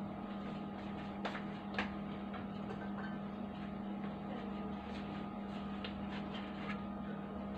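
A steady low hum, with two faint clicks a little over a second in.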